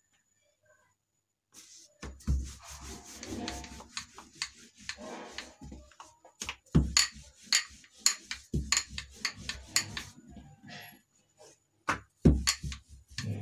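Wooden rolling pin rolling out bhatura dough on a kitchen counter. Starting about two seconds in, it makes repeated rubbing strokes with knocks and light thumps as the pin meets the dough and the counter.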